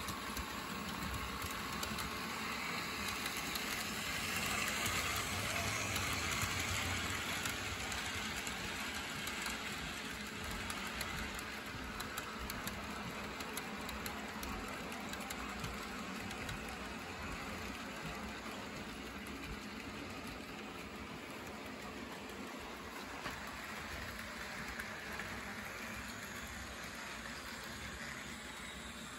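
HO-scale model freight train running on layout track: small electric motors whirring, with a fast patter of wheels clicking over the rail joints. It is loudest a few seconds in as the cars pass close by.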